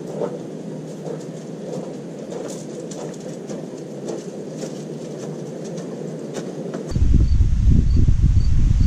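Open-air ambience with faint scattered ticks and rustles. About seven seconds in it gives way abruptly to a louder, low rumble of wind buffeting the microphone, with a faint high chirp repeating evenly behind it.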